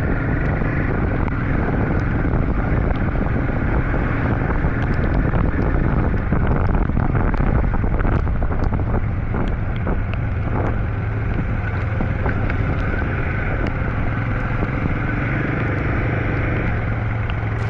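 Royal Enfield 452 single-cylinder motorcycle engine running steadily under way, with wind rushing over the microphone.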